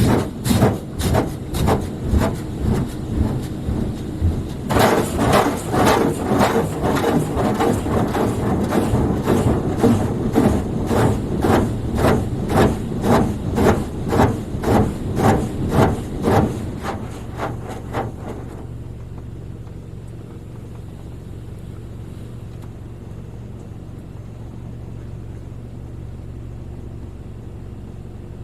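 Car wash spray jets beating on the car in a fast, even rhythm, loud and hissing, until they stop about 17 seconds in; a steady low hum from the wash equipment and car is left.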